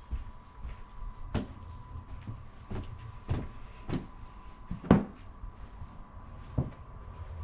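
Footsteps thudding up carpeted stairs and onto the carpeted landing: about six dull, uneven steps, the heaviest about five seconds in. A faint steady hum runs underneath.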